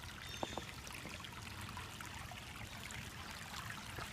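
Water of a shallow creek trickling steadily, with a brief click about half a second in.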